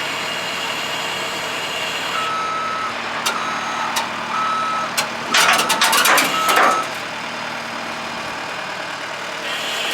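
A loader's diesel engine running steadily while its backup alarm sounds about six short beeps as it reverses. A brief burst of clatter comes in the middle of the beeping.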